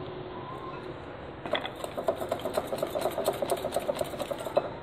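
Wire whisk beating softened butter in a glass bowl, the wires clicking rapidly and evenly against the glass from about one and a half seconds in until just before the end.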